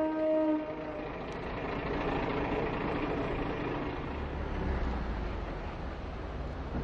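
Diesel railcar's horn sounding one steady note that cuts off about half a second in, then the railcar running along the track, its diesel engine and wheels giving an even rumble that swells lower and louder around four to six seconds in.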